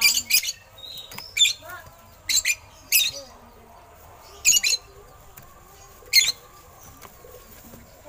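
Caged oriental magpie-robin giving short, harsh, raspy calls, about seven of them spaced unevenly over several seconds.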